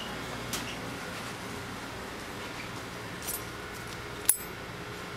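Small lab tools and stir bars being picked through in a drying tray: a few light clicks and one sharp clink about four seconds in, over a steady room hum.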